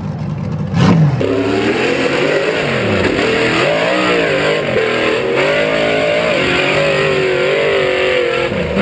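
Rock bouncer's small-block Chevy V8 revving hard over and over, its pitch swinging up and down repeatedly as the buggy claws its way up a steep dirt hill.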